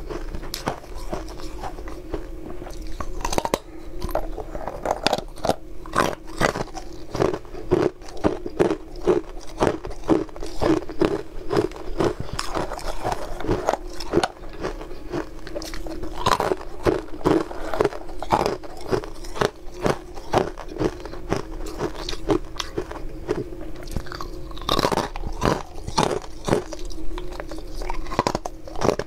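Close-up crunching of hard frozen coloured ice pieces being bitten and chewed, a rapid run of sharp cracks and crunches that keeps going.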